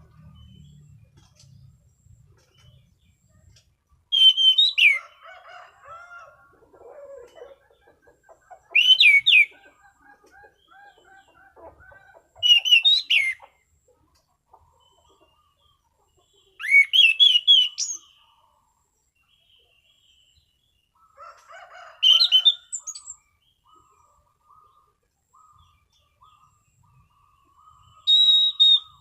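Anis cendana thrush singing in loud, clear whistled phrases, each about a second long and repeated every four to six seconds, with soft, lower twittering between them.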